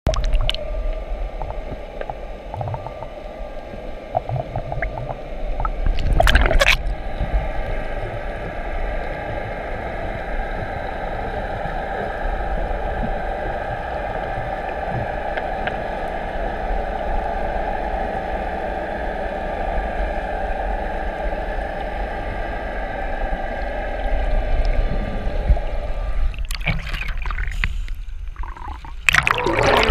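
Muffled underwater sound heard through a GoPro housing: a steady rushing hum while the camera is submerged. There is louder splashing and gurgling of water at the surface about six seconds in and again near the end.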